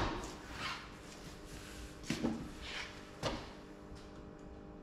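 Ford Transit recovery truck's cab door being handled: a few separate clunks and knocks over a faint steady hum.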